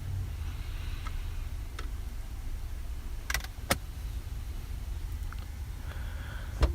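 Sharp plastic clicks from the rear centre armrest's cup holders and storage compartment being worked by hand: two clicks about three and a half seconds in and a louder one near the end, over a steady low rumble.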